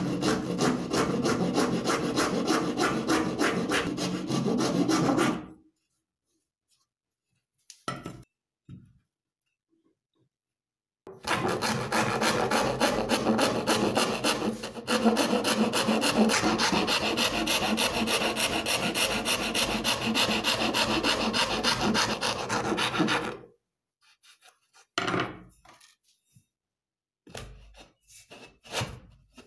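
Wood rasp scraping back and forth in quick strokes around the inside of a round hole in a wooden board, enlarging it. It goes in two long runs with a pause of a few seconds between them.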